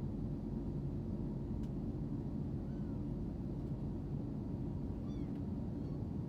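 Steady low rumble of airliner cabin noise from the engines and rushing air, with two faint, short, high cries like mews, one about halfway through and one near the end.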